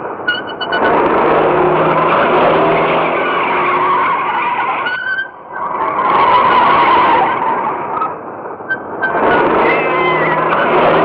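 Car engine running hard with its tyres skidding and screeching. The noise dips briefly about five seconds in and again around eight seconds in.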